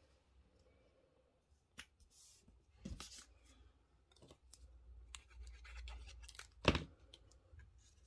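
Faint rustling and scratching of paper being pressed and smoothed down onto cardstock by hand, with a few sharp clicks. The sharpest click comes about two-thirds of the way through.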